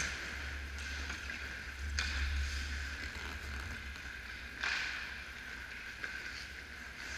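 Ice hockey skates carving and scraping on the rink ice, with two sharper scrapes, about two seconds in and again just before five seconds, over a low steady hum.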